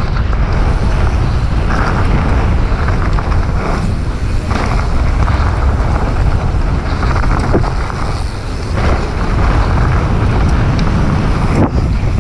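Commencal Supreme DH29 downhill mountain bike rolling fast down a trail: steady tyre and wind rush on the camera microphone, with a few short knocks and rattles from the bike over bumps.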